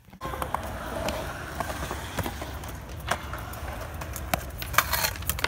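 Kick scooter and skateboard wheels rolling on concrete as a steady low rumble, with several sharp clacks of wheels and decks hitting the ground.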